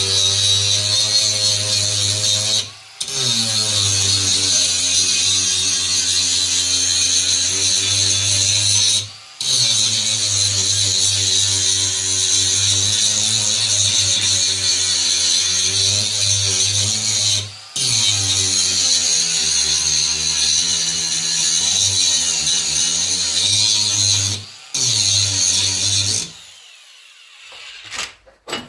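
Cordless angle grinder grinding a bevelled edge into an iron piece, so that the weld will fill the groove and penetrate the metal. The grinder runs steadily under load with four brief dips as it eases off the work, and it stops about two seconds before the end.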